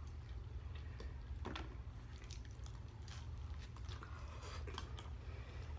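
A person chewing food close to the microphone: soft wet mouth smacks and clicks at an irregular pace, over a steady low hum.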